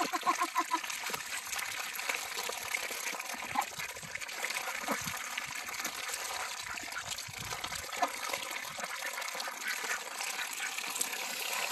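A flock of domestic ducks dabbling in a tub of watery feed: continuous wet slurping, bill-clattering and splashing as many bills sift the water at once.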